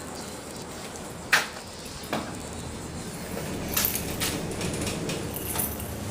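Elevator doors: two sharp clicks, then a rattling slide that grows louder from about halfway through.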